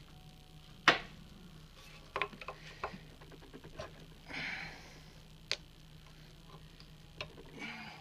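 Sharp metallic clicks and taps of hard-drive magnets on their metal plates being handled against a steel bench vise, the loudest a single snap about a second in, followed by a few lighter clicks and two brief rustles.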